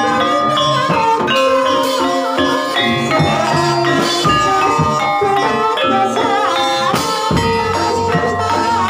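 Javanese ebeg accompaniment music from a gamelan-style ensemble, struck metal or bamboo bars ringing out a steady rhythmic pattern with rattling percussion.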